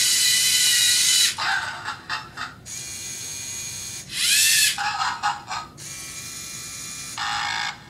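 Lego Mindstorms EV3RSTORM robot's servo motors whining through their plastic gear trains as the robot drives and turns under its own program. The motors start and stop in bursts: loud whines that rise in pitch as a motor spins up, choppy stop-start pulses, and quieter steady stretches.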